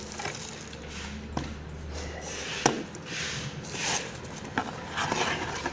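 Bubble wrap and cardboard packaging rustling and crinkling as a walkie-talkie is pulled out and unwrapped, with one sharp tap about two and a half seconds in.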